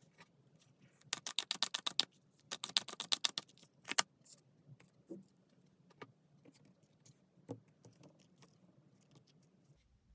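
Tarot cards being shuffled: two quick bursts of rapid card clicks, each under a second, then one sharp snap and a few scattered light taps.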